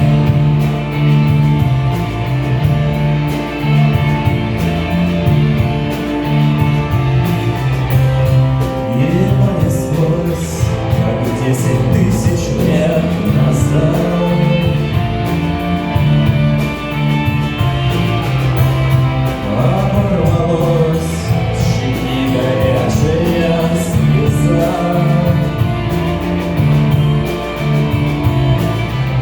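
Music: the opening of a song, with steady low bass notes throughout and a wavering melody line that comes in about nine seconds in.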